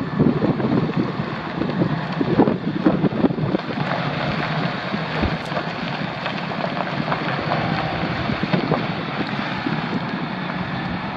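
A 2016 Chevrolet Silverado 2500HD's 6.0 L gas V8 idles steadily. Wind buffets the microphone, with gusts strongest in the first few seconds.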